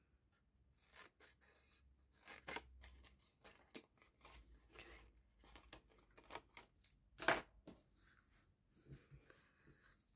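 Scissors making short snips into scored cardstock, cutting small wedges and tabs, with light paper handling between cuts. A sharper, louder click comes about seven seconds in.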